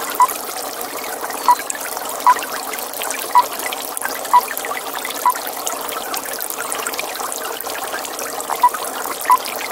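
A toad calling in a pond: short single notes repeated roughly once a second, with a pause of about three seconds midway, over a steady trickling-water hiss.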